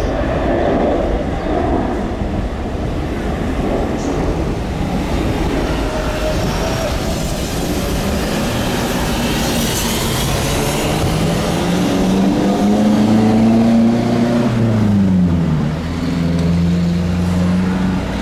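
A Lion Air Boeing 737's twin jet engines at takeoff thrust: a loud, steady roar through the takeoff roll and climb-out, with a humming tone that drops in pitch about three seconds before the end.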